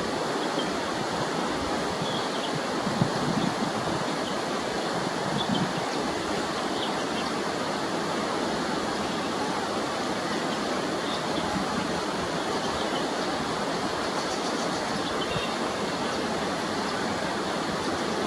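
Steady, even rushing noise, with a few faint, short, high-pitched chirps over it now and then.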